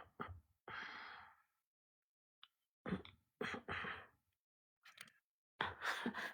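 A person sighing and breathing faintly: a breathy exhale about a second in, followed by a few more short breaths.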